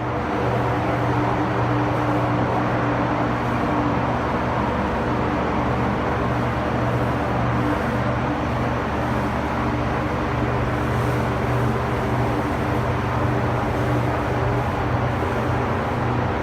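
A steady mechanical hum with a rushing hiss, unchanging throughout, starting abruptly at a cut.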